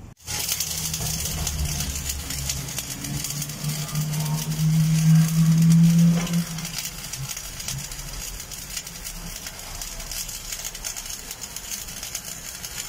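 Electric arc welding on a steel pipe elbow and flange: a steady sizzling crackle starting suddenly just after the beginning. A low hum builds under it, is loudest a little past the middle, then drops away.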